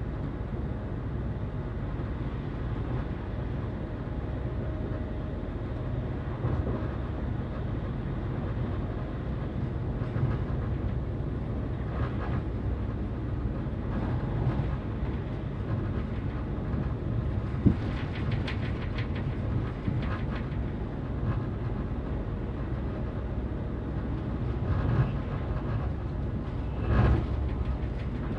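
Steady low rumble of a passenger train running at speed, heard from inside the carriage, with a few short knocks and a stretch of rapid clicking from the wheels on the track; the sharpest knocks come about 18 and 27 seconds in.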